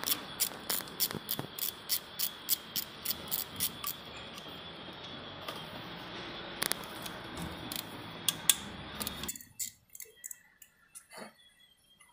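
Ratchet wrench clicking at an even pace, about three clicks a second, while unscrewing the timing chain cover bolts of a Suzuki Swift engine; after a steady background hiss cuts out about nine seconds in, a few light metal clinks follow.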